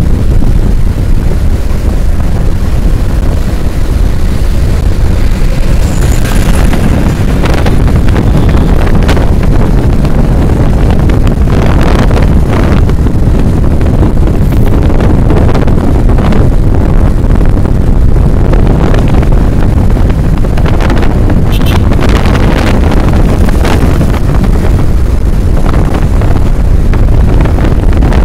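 Heavy wind buffeting the microphone of a camera riding in a moving vehicle: a loud, continuous low rumble with frequent brief crackles, and vehicle and road noise underneath.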